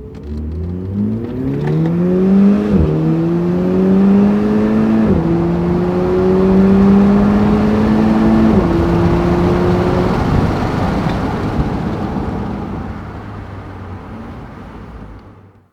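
2008 Audi TTS Quattro's turbocharged 2.0-litre four-cylinder accelerating hard, its pitch climbing through the gears with three quick upshifts at about 3, 5 and 8½ seconds in. After the last shift the engine note holds steady, then fades into a rushing noise and cuts off suddenly at the end.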